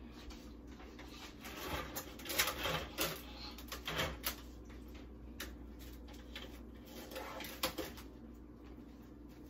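Faint, scattered clicks and rustling of things being handled, bunched together a couple of seconds in, with one more sharp click later on.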